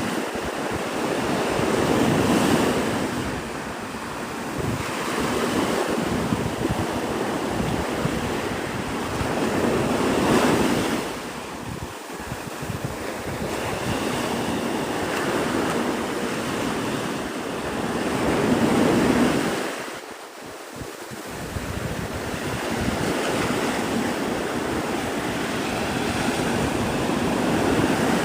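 Gulf of Mexico surf breaking on the beach, a steady rush that swells to a peak about every eight seconds, with wind buffeting the microphone.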